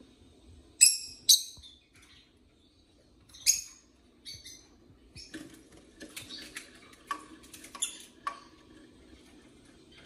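Rosy-faced lovebirds giving sharp, high chirps: three loud ones in the first four seconds, then a run of shorter, fainter calls until about eight seconds in.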